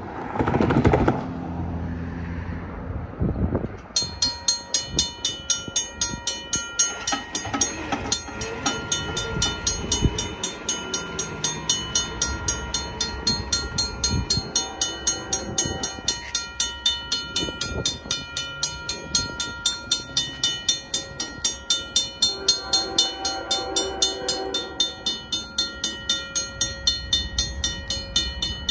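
Railroad crossing warning bell ringing in even strokes about twice a second, starting about four seconds in, signalling that a train is approaching the crossing. A brief rush of noise comes first, and a distant locomotive horn sounds for a few seconds late on.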